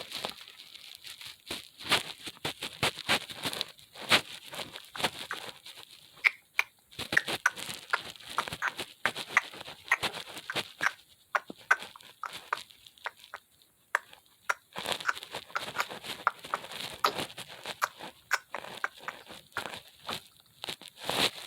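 Fidget toys being handled and played with close up: an irregular run of small crackling, crinkling clicks and pops.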